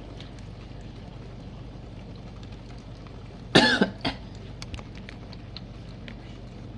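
GE Profile dishwasher running with a steady low hum. A person coughs loudly about three and a half seconds in, with a shorter second cough just after.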